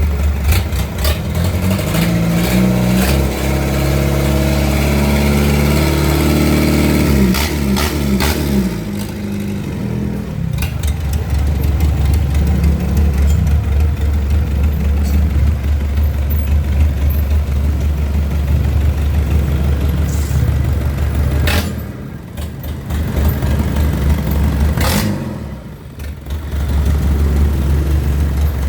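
Mitsubishi 4D31 four-cylinder diesel engine running. Its pitch rises and falls over the first eight seconds or so as it is revved, then it settles into a steady run that drops briefly twice near the end.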